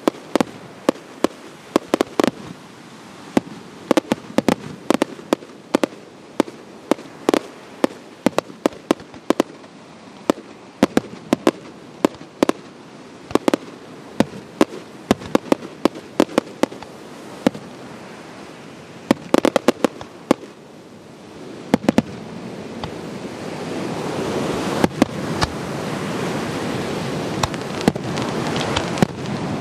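Fireworks display: aerial shells bursting in a rapid, irregular string of sharp bangs, often several in quick succession. From about twenty-two seconds in, a steady, louder noise builds beneath the bangs.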